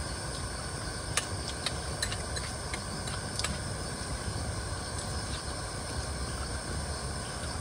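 Insects, likely crickets, chirring steadily over a low, even hiss, with a few sharp clicks in the first half.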